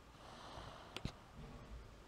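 Quiet pause between a sleeping toddler's snores, with one faint click about halfway through.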